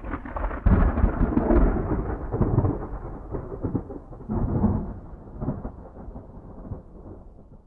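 A roll of thunder: a low rumble that swells loud about a second in, then rolls on in several waves and fades away.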